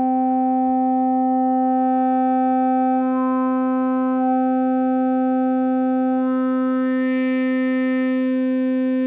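Two oscillators of a Synthesizer.com modular analog synthesizer sounding one steady pitched tone, one oscillator synced to the other and the two nearly in tune. The overtones change about three seconds in and again about six seconds in, while the pitch holds.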